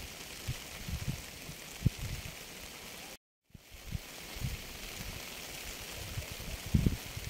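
Rain falling with a steady hiss, with irregular low thuds of drops hitting a nearby surface. The sound cuts out completely for a fraction of a second a little past three seconds in.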